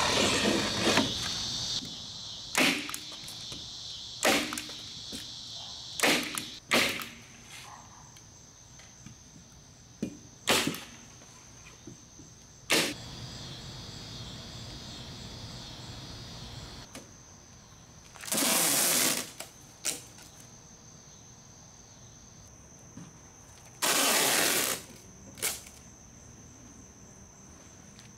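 A steady high trill of evening crickets, with scattered sharp clicks and rustles of house wrap and tape being handled, and two harsh noises about a second long: one a little past the middle, one about three-quarters in.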